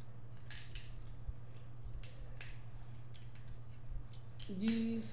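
Irregular crisp snaps and crackles of king crab shell being broken and picked apart by hand, with light clicks of cutlery on a plate. A short hummed voice sound comes near the end.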